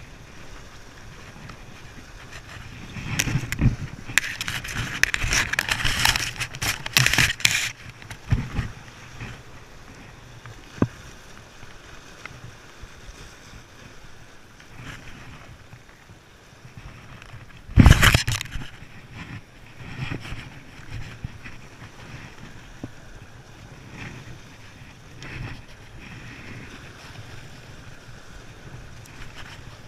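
Wind buffeting the microphone over surf washing against jetty rocks, with a gusty stretch a few seconds in and one short, loud burst of noise a little past halfway.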